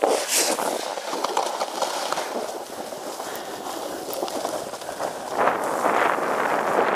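Edges scraping and hissing as they slide over packed snow, swelling louder about five and a half seconds in.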